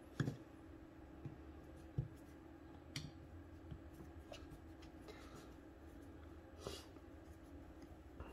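Faint clicks and light scrapes of a screwdriver turning out the loose top screws of a Rochester 4GC carburetor, a few scattered ticks over a steady low background hum.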